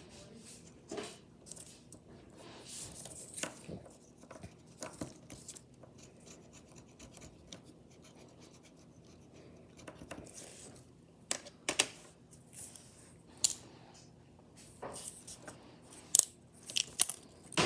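Hands handling small plastic Littlest Pet Shop toy pieces and craft materials: light scratching and rubbing with scattered clicks, which come sharper and more often in the second half.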